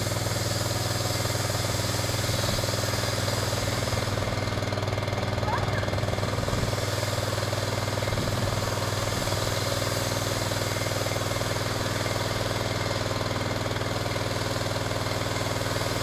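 Gas engine of a Norwood LM29 portable band sawmill running steadily, without revving. Its throttle cable needs adjusting.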